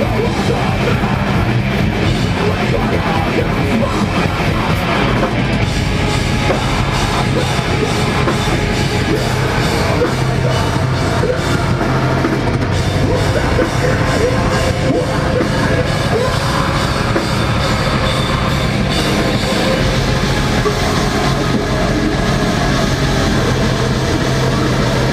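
Live deathcore band playing loud: heavily distorted electric guitars and bass over a drum kit, with no break.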